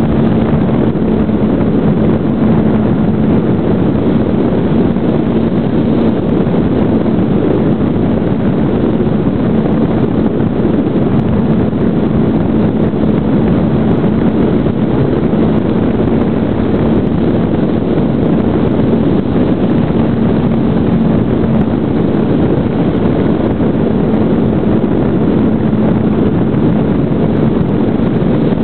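Brushless electric motor and propeller of a GWS Slow Stick RC plane running steadily in flight, heard from the onboard camera under heavy wind rush on the microphone: a constant hum over a steady roar of air.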